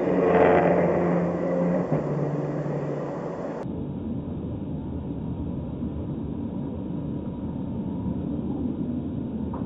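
A sports car's engine sounds loudly as it overtakes, its steady note dropping about two seconds in. It then settles into a steady drone of engine and road noise from the recording car.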